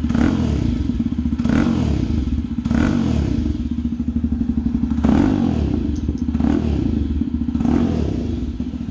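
Jawa 42's 293 cc single-cylinder engine running loud and deep through aftermarket SC Project-style silencers, with about six short throttle blips over a steady pulsing idle.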